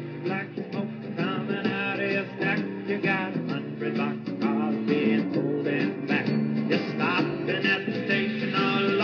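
Background music: a guitar-backed song with a singing voice.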